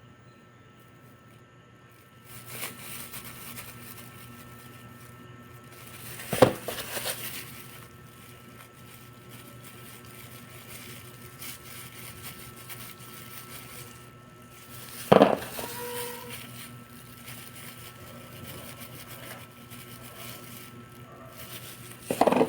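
Small motorcycle parts being handled, with rustling and rubbing throughout and three sharp knocks: about six seconds in, about fifteen seconds in, and at the very end.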